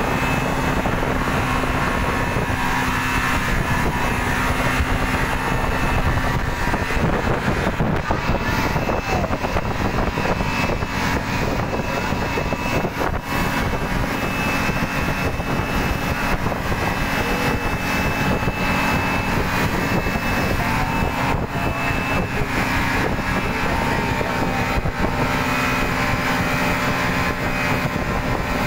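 Motorboat underway at speed: its engine running at a steady pitch under the rush of water off the hull.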